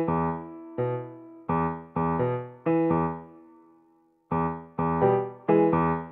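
Background music: a keyboard playing struck chords, each note dying away, with a brief pause about four seconds in before the playing resumes.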